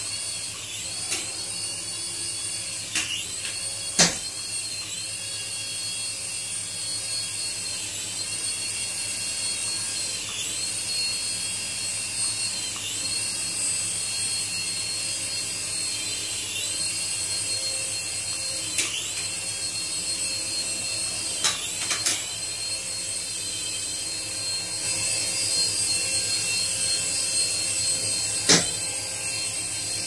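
Toy RC helicopter's tiny electric motors and coaxial rotors whining at a high pitch. The pitch dips and climbs back every few seconds as the throttle changes, with a few sharp knocks.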